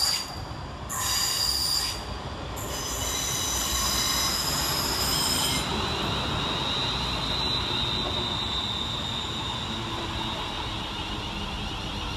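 West Midlands Railway Class 350 Desiro electric multiple unit arriving into the platform, its wheels squealing high-pitched in short bursts over the first six seconds, the longest lasting about three seconds. Then comes the steady rumble of the carriages rolling slowly past.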